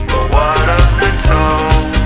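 Background music: a song with a steady beat and drums, and a pitched melody line, a voice or instrument.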